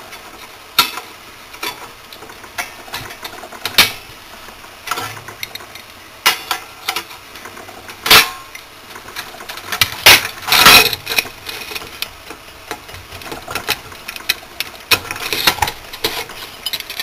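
Hands removing a cooling fan and its wire guard from a finned aluminium heatsink: irregular clicks, taps and clinks of metal and plastic. There is a louder knock about eight seconds in and a burst of rattling around ten to eleven seconds.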